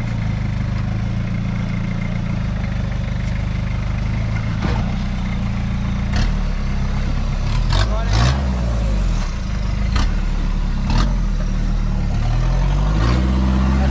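Engine of a modified off-road comp truck crawling down a rock ledge, its pitch rising and falling with the throttle, notably about eight seconds in and again near the end. Several sharp knocks are heard as it works over the rock.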